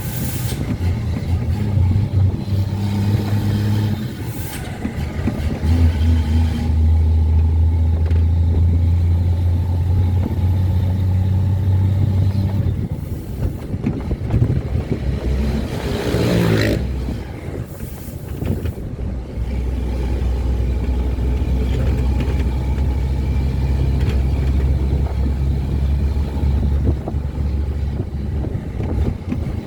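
Ford Cargo 2428 truck's six-cylinder diesel engine running under way with a deep, steady rumble, its pitch stepping down and up several times. About sixteen seconds in, a brief rush of noise sweeps over it.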